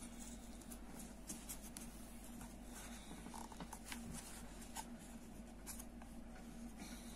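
Faint scratching and small clicks of a crochet hook drawing cord through the holes in a wooden bag side as crochet stitches are worked, over a steady low hum.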